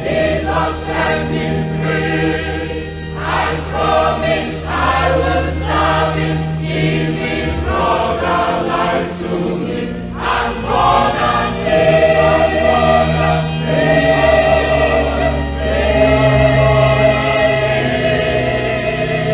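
A choir singing gospel music over an instrumental backing with low bass notes held for several seconds at a time.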